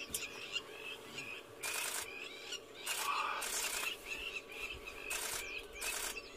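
Several short bursts of rapid camera shutter clicks, over a run of short, shrill crowned lapwing calls repeated again and again as the birds mob a perched tawny eagle.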